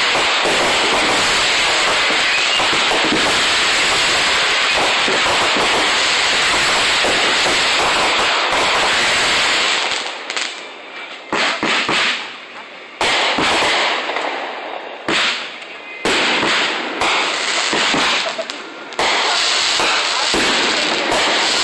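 Fireworks going off: a dense, unbroken stretch of crackling and popping for about ten seconds, then separate loud bangs and crackles with short gaps between them.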